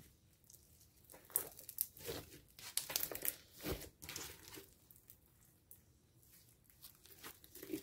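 Bubbly slime (glue mixed with foam and foam soap) squeezed and stretched by hand, giving clusters of small crackles and pops as trapped air bubbles burst. The crackling is densest in the first half, eases off, then picks up again near the end.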